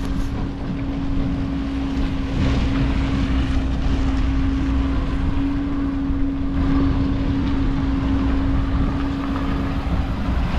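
Truck engine running steadily, with a constant low drone and rumble.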